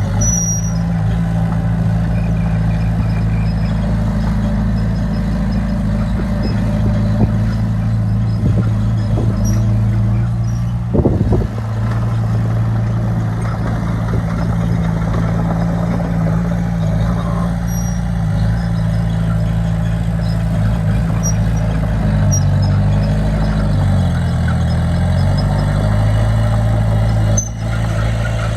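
Heavy diesel engine of earthmoving machinery running steadily. Its pitch dips and recovers about three-quarters of the way through, and there is a brief loud burst of noise near the middle.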